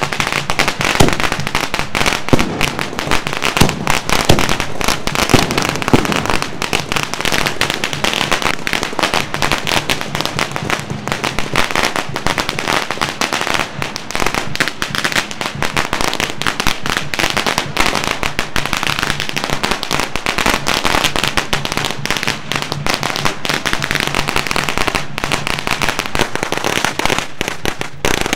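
Lunar New Year firecrackers going off in a rapid, continuous crackle of pops and bangs, the loudest bangs in the first few seconds.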